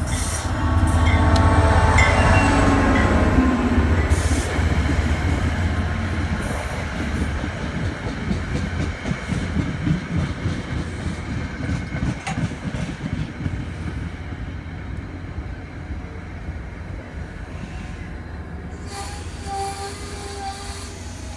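An NJ Transit EMD GP40PH-2B diesel locomotive passes close by, loudest in the first few seconds, followed by a string of passenger coaches rolling past with a steady rumble of wheels on rail. The rumble fades gradually as the train pulls into the station, with short squeals near the end.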